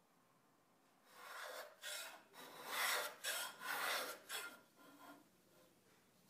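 Hand plane shaving a walnut block: a series of about five or six rasping strokes, loudest in the middle, trailing off near the end.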